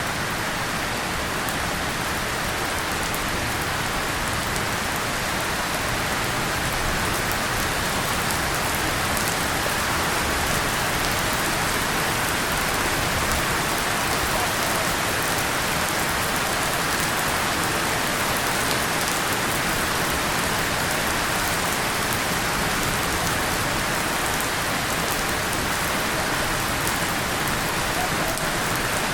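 Steady rain falling on a tin surface and leaves, an even hiss of close-packed drops.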